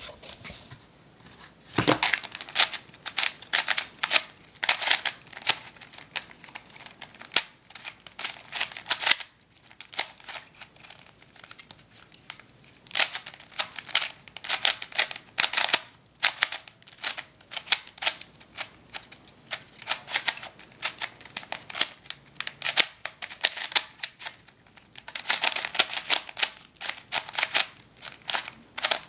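A brand-new, not yet worked-in Rubik's brand 3x3 cube being turned through a solve: quick runs of plastic clicking and clacking as the layers turn, broken by short pauses.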